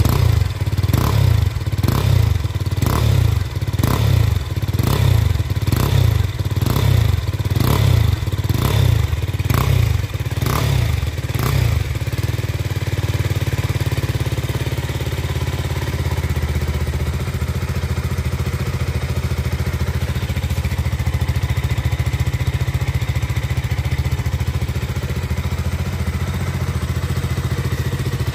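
KTM RC 200's single-cylinder engine running through a stock KTM RC 390 BS4 full-system exhaust with its dB killer still fitted. The throttle is blipped quickly, about twice a second, for the first eleven seconds or so, then the engine settles to a steady idle.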